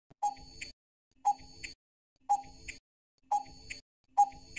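Countdown-timer sound effect ticking about once a second, five ticks in all, each a sharp click with a short ring and a fainter click just after it, marking the thinking time for a quiz question.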